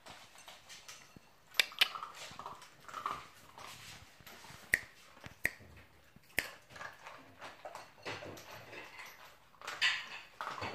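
Small dog crunching dry food from a bowl, irregular chewing with several sharp clicks through it and a louder burst of crunching near the end.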